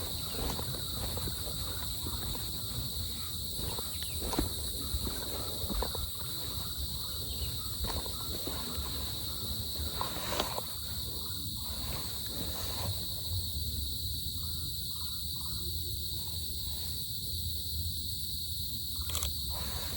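Forest insects, crickets or cicadas, keeping up a steady high-pitched drone, with scattered light rustles and steps over the first half.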